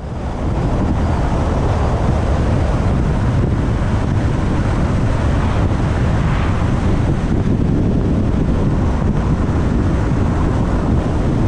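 Loud, steady wind buffeting the microphone: a rushing noise with a heavy, fluttering low rumble that swells up at the start.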